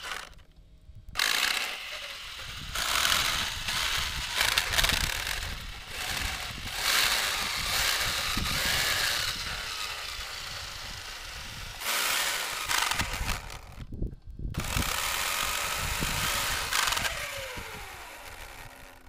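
Arrma Outcast 4S RC truck's brushless drivetrain run in bursts with the truck held off the ground and the wheels spinning free, grinding and crunching from the broken rear differential. It stops briefly about three-quarters through, then winds down with a falling pitch near the end.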